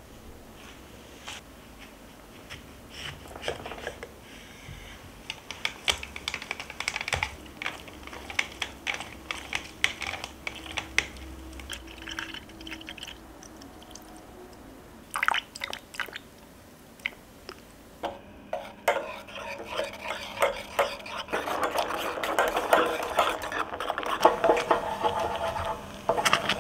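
A small wire whisk clicking and scraping against a white enamel saucepan, beating eggs, sugar and orange juice for orange curd. There are a few sharper knocks past the middle, and faster, denser whisking and stirring in the last third.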